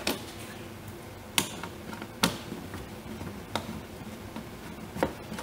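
A screwdriver clicking and tapping against small screws in a plastic windshield cowl as they are worked out. There are about five sharp, irregularly spaced clicks, the two loudest in the first half, with faint ticking between them.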